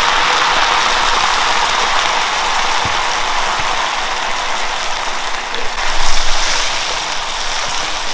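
White wine sizzling and bubbling hard in a hot cast-iron skillet of butter, onion and garlic as the pan is deglazed, a steady crackling hiss that eases a little and swells briefly about six seconds in.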